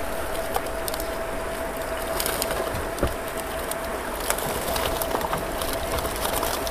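A wet keep net full of carp being hauled out of the pond and lifted into a plastic crate: scattered rustles, knocks and clicks of the net mesh and the thrashing fish, over a steady faint high whine.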